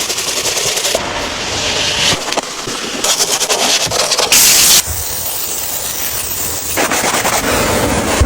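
Hissing spray and crackling scrubbing noise from cleaning work on a dirty truck, in short stretches that cut abruptly from one to the next, with a brief louder burst of spray about halfway through.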